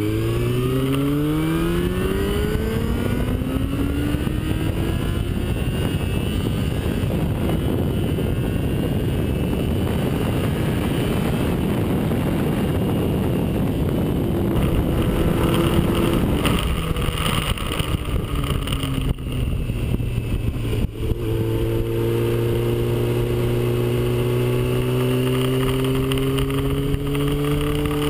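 Yamaha sportbike engine pulling hard, its note climbing steeply at the start, then largely covered by wind rushing over the microphone at speed. In the last few seconds the engine note is steady again and rises slowly.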